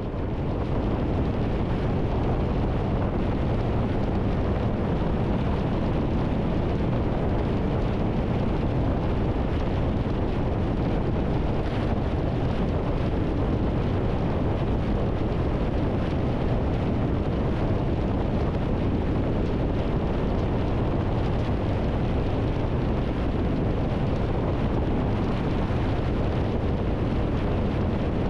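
Steady wind rush on the microphone mixed with the engine and tyre noise of a Triumph Tiger 1200 motorcycle cruising at highway speed.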